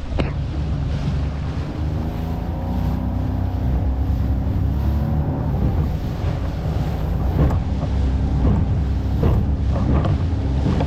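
Small fishing boat's motor running under way, its pitch rising about two seconds in as it picks up speed, with wind buffeting the microphone.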